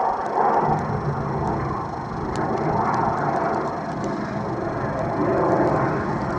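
Wind buffeting the camera microphone: a steady rough rushing that swells and eases.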